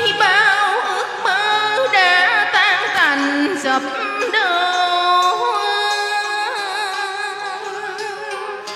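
A woman sings a Vietnamese duet melody into a microphone with a strongly wavering vibrato, over instrumental backing.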